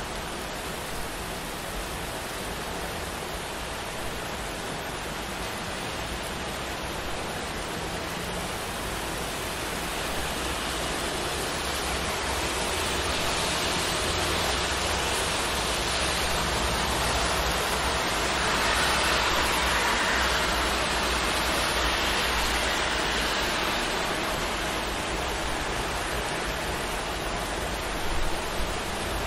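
Steady rain with traffic on a wet city street: a slow swell of tyre hiss builds to a peak about two-thirds of the way through, then fades.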